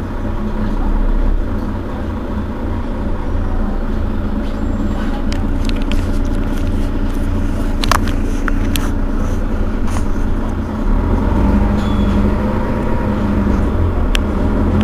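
Mercedes-Benz Citaro Facelift city bus engine idling at standstill, a steady low rumble. A few sharp clicks come about eight seconds in, and the low note grows somewhat louder about eleven seconds in.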